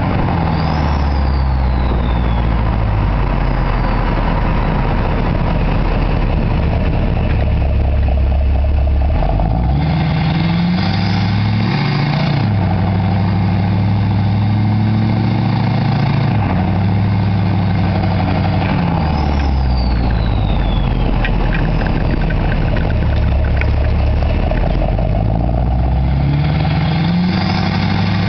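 Straight-piped 6.6-litre Duramax LLY V8 turbodiesel pickup under way, its engine note climbing and dropping several times with throttle and gear changes. Twice, near the start and about two-thirds in, a high turbo whistle winds down in pitch over a couple of seconds.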